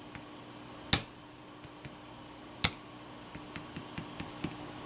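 Small rubber dots stamp tapped down onto card stock on a table: two sharp taps about a second apart at first, then a run of lighter, quicker taps, a few a second, near the end.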